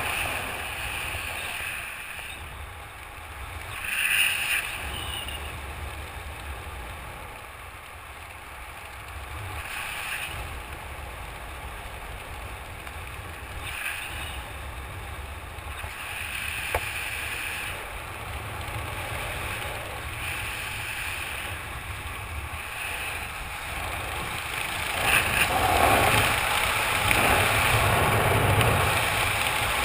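Wind rushing over the microphone of a skydiver's camera under canopy: a low, steady rumble and hiss with a few brief gusts, growing clearly louder about 25 seconds in.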